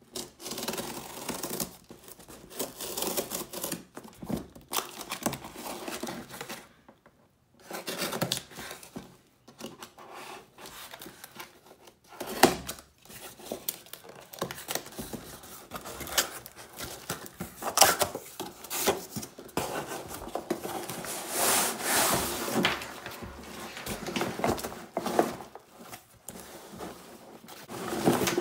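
A cardboard shipping box being opened by hand: packing tape peeled and torn off, a knife slitting along the cardboard, and the flaps scraping and rustling, with a few sharp knocks. Near the end the folded grid-stop nylon backpack rustles as it is lifted out.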